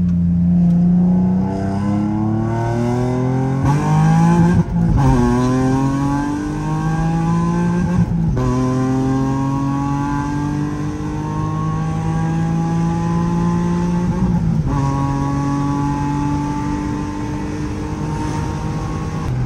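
Nissan 350Z's 3.5-litre V6 engine and exhaust, heard from inside the cabin, accelerating hard through the gears. The pitch climbs in each gear and drops back at three upshifts, then settles to a steadier cruise.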